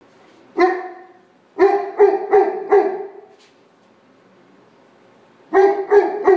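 Newfoundland dog barking in sharp, deep barks: one bark, a quick run of four about a second later, then after a pause three more near the end.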